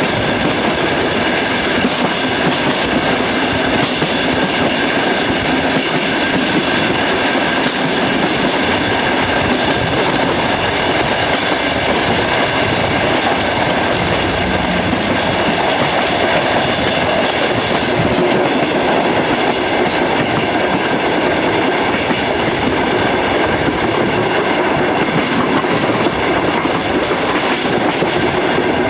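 Steady running noise of a passenger train heard through an open coach window: wheels rolling on the rails with wind rush, while a long freight train passes on the next track.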